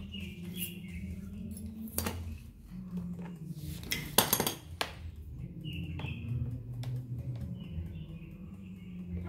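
Small metal parts and tools clinking and knocking as an appliance is handled during a repair, with a short clatter about four seconds in. Short high chirps sound now and then over a steady low hum.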